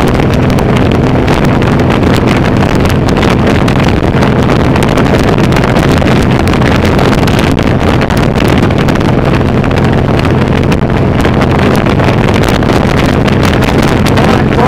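Suzuki C1800R cruiser's V-twin engine running steadily as the bike rides along at road speed, with wind buffeting the microphone.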